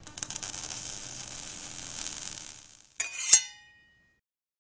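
Logo sound effect: a crackling hiss for nearly three seconds, then a sharp hit and a bright ringing chime that dies away within half a second.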